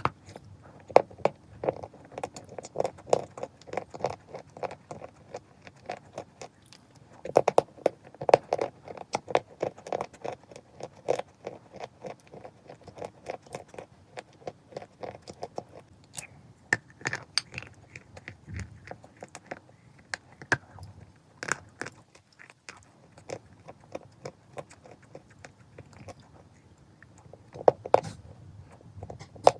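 Chalk being bitten and chewed: rapid crisp crunches, thinning out to scattered crackles around the middle and picking up again near the end.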